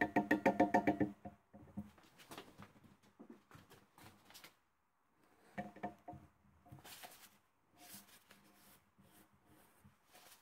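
Gloved hands handling and wiping a freshly installed belt-sander roller with a paper towel: a quick run of rapid, evenly spaced clicks in the first second, then scattered clicks, knocks and paper rustling.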